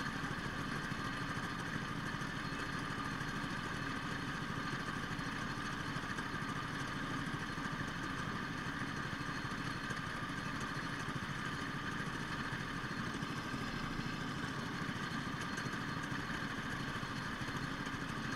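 Go-kart engines idling steadily, with no revving.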